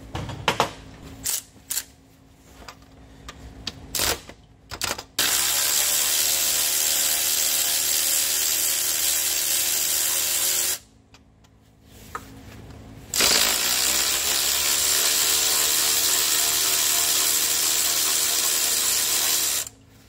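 Cordless electric ratchet running in two long runs, each spinning up quickly to a steady whine for about six seconds, as it backs out the belt tensioner's two bolts. A few sharp clicks come before the first run.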